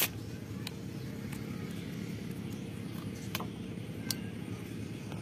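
Knife tapping and scraping on the shaved husk of a young coconut: a handful of sharp, separate clicks, the loudest right at the start. A steady low hum runs underneath.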